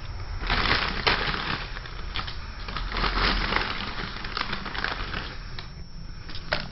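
Continuous, irregular crunching and crackling with many sharp cracks: something being crushed.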